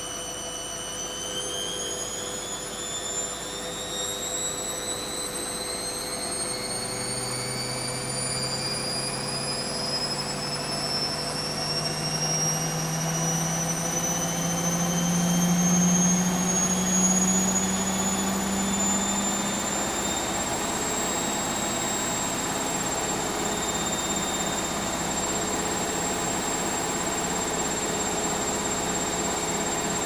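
Bush WMNSN612W washing machine on its spin cycle: the motor's whine rises steadily in pitch as the drum speeds up toward 1000 rpm, levelling off about two-thirds of the way in. A low drone swells around the middle and then fades.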